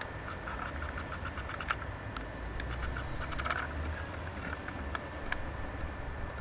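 Irregular short clicks and quick rattling pulse trains over a steady low rumble.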